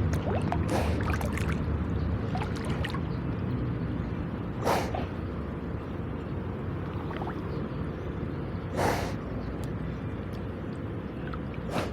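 Water buffalo bathing, with short, sharp breathy snorts: a cluster in the first few seconds, then single ones about four seconds apart. A steady low rumble sits underneath.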